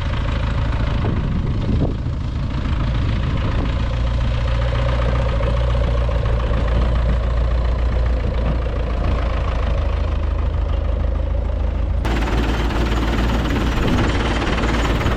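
A motor running steadily. About twelve seconds in, the sound changes abruptly and takes on more hiss.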